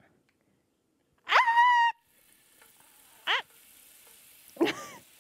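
Butter squeezed from a tube into a hot frying pan, sizzling faintly from about two seconds in. A woman's voice is louder than the sizzle: a rising, held vocal sound a little over a second in, then short calls at about three and a half and five seconds.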